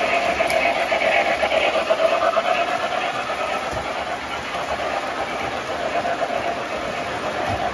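An O gauge model train's flat cars and locomotive rolling steadily along the track: a continuous rolling rumble with a steady hum.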